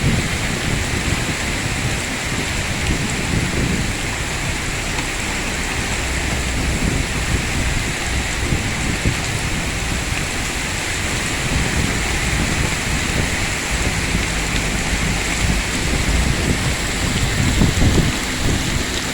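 Heavy rain pouring down steadily, with louder low rumbling surges near the start and again near the end.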